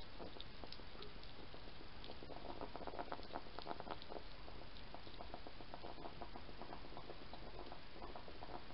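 European hedgehog crunching and chewing dry food pellets from a bowl: fast, irregular little crackles, busiest a few seconds in.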